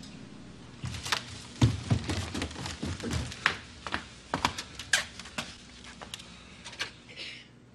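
Footsteps on a wooden floor and small clicks of objects being handled, coming irregularly with a few heavier thumps in the first two seconds.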